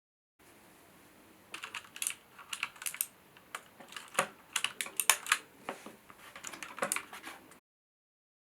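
Typing on a HyperX Alloy FPS Pro mechanical keyboard: a quick, irregular run of sharp key clicks from its Cherry MX switches, starting about a second and a half in and stopping abruptly near the end.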